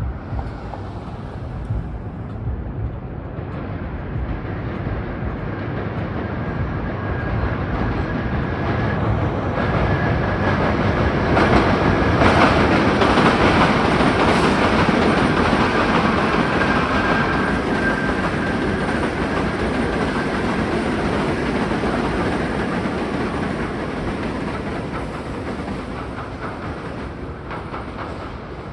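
Train passing on rails, the wheel and track noise growing to its loudest about halfway through and then fading, with a faint high wheel squeal in the middle.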